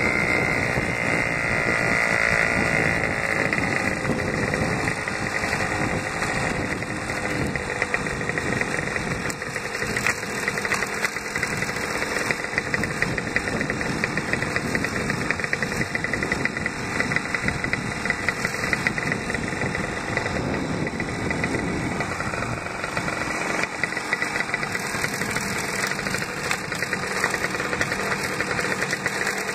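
Suzuki AX100's single-cylinder two-stroke engine running steadily under way on a gravel dirt road, its pitch falling over the first few seconds, with a constant rattle of small clicks.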